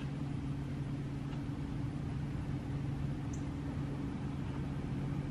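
A steady low hum from a running machine, with a brief faint high chirp about three seconds in.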